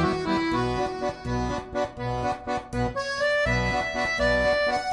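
Background music: an accordion-led tune with bass notes under the melody.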